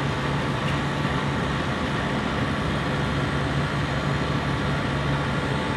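A compressor running steadily: an even mechanical drone with a constant low hum and a thin higher tone above it.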